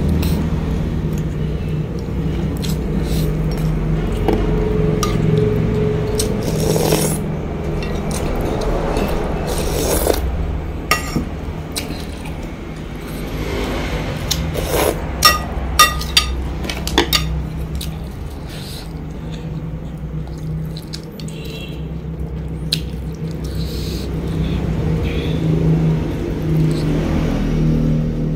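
Eating at close range: chewing and handling a meal, with a metal spoon and chopsticks clinking against a ceramic soup bowl, several sharp clinks coming close together around the middle. A steady low hum runs underneath.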